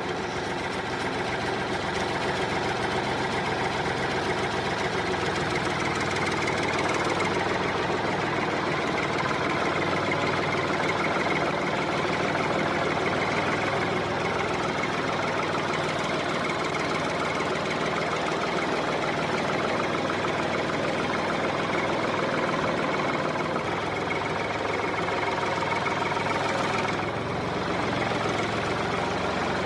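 Tractor engine running steadily at an even idle-like pace after starting up.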